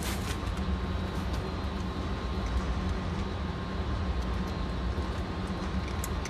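Steady low background rumble, with a few faint clicks of a Ruger pistol being handled and loaded; no shots are fired.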